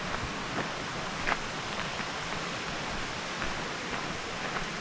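Steady rushing hiss with a few soft crunches of footsteps on a gravel trail.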